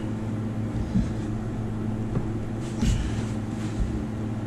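Steady low machine hum, with a short knock about a second in and a brief scrape and thump near three seconds as a glued-up stock block is shifted into position on a sawdust-covered CNC router bed.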